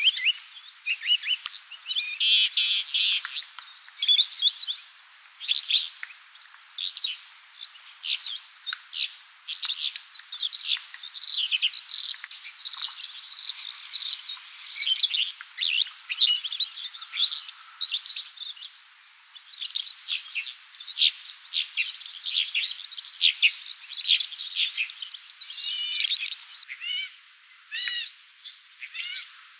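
A flock of small birds chirping, with many short, high calls overlapping in a continuous chatter and a couple of brief lulls.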